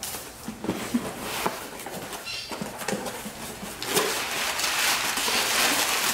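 Cardboard box flaps being pulled open, then crumpled brown kraft packing paper rustling and crinkling as it is dug into and pulled out of the box, louder and denser from a few seconds in.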